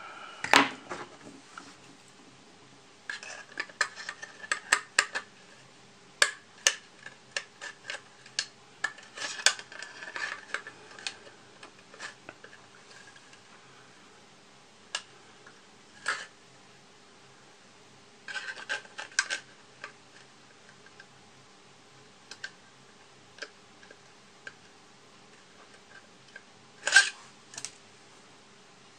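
Small tool clicking, tapping and scraping against the hard plastic parts of a model kit while prying at glued pieces, in irregular clusters of sharp clicks with quiet gaps between them. A louder, sharper click comes near the end.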